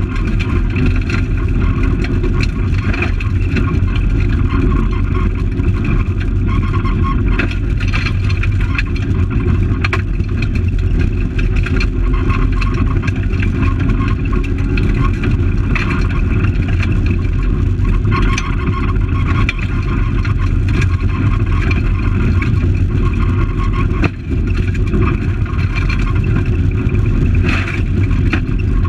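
Fiat Palio rally car's engine running hard on a gravel stage, heard from inside the cabin, with tyre and gravel noise and scattered sharp knocks from stones and rattles. The engine note dips briefly about three quarters in.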